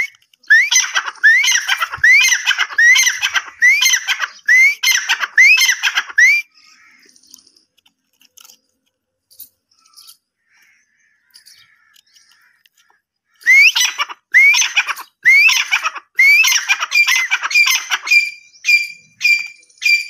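Francolin (teetar) calling: a loud run of rising, ringing notes, more than one a second. It falls silent for several seconds midway, then calls again, and the last notes level out into flat whistles.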